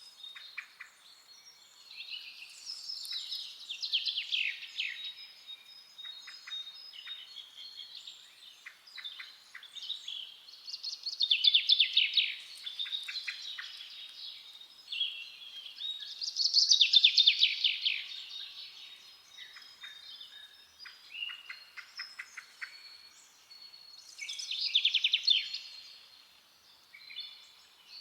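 Forest songbirds singing: one bird repeats a loud, fast trilled phrase that falls in pitch, about every six to eight seconds, four times, with softer chirps from other birds in between.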